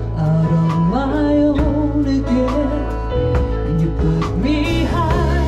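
Live music: a woman singing a slow ballad over steady instrumental accompaniment, her voice sliding between held notes about a second in and again near the end.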